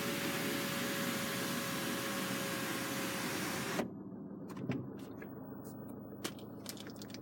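Range Rover Evoque's electric panoramic-roof blind motor running with a steady hum as the blind closes, cutting off with a click about four seconds in. A few light clicks and knocks follow.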